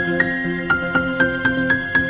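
Background music: a calm instrumental track of held chords with a quick, repeating high note pattern over them.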